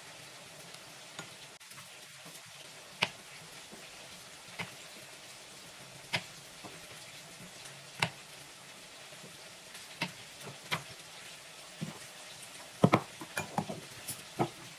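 Knife clicking and scraping as fresh ginger is peeled over a wooden cutting board, a sharp click every second or two, then a quick run of clicks and clinks near the end as pieces go into a steel mixer-grinder jar and its lid is handled. Under it, a faint steady sizzle of chicken frying.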